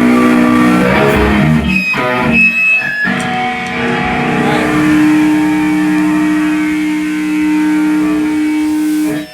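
Electric guitar played between songs: a few chords and notes, then one note held ringing for several seconds and cut off sharply near the end.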